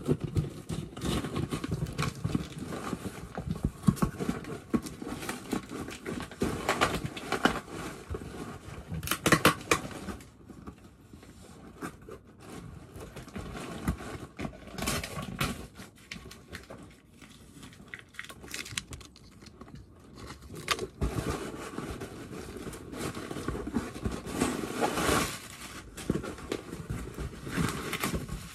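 A cardboard shipping box being opened by hand: irregular tearing, scraping and rustling of the cardboard and its flaps, with sharp snaps now and then. Near the end, plastic wrapping crinkles as it is pulled out.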